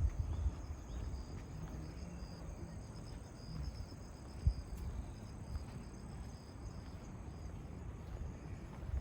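Insects chirping in a steady, pulsing high trill, over a low rumbling noise, with one short thump about halfway through.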